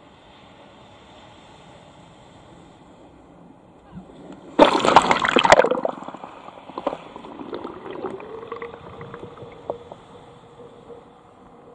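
Seawater splashing over a camera at the shoreline: a loud rush of water for about a second, then gurgling and trickling as it drains away, with a thin steady tone near the end.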